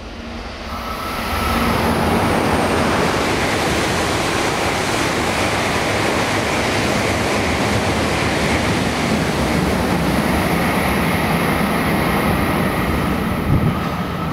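Coupled E3 series and E2 series Shinkansen passing through a station at speed without stopping. A loud, steady rushing noise builds over the first two seconds, holds while the cars go by, and starts to fade near the end, with a brief knock shortly before.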